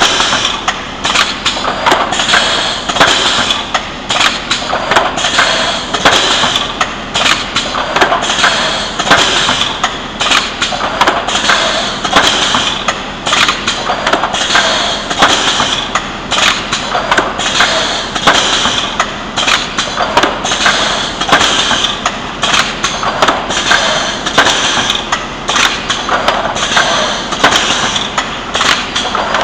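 Spine pocket welding machine for PP/PVC lever arch file covers running continuously, cycling over and over with a clatter of clicks and knocks and a higher-pitched noise that comes back about every two seconds.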